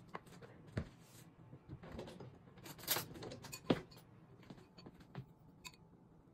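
A few light knocks and clicks of dishes and utensils being handled, spread over several seconds with quiet room sound between; the sharpest comes a little past halfway.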